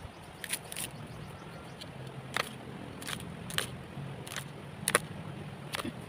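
Kindling and coconut husk being worked at a small, smoking wood fire: a series of about eight sharp, irregular snaps and knocks over a steady low rush.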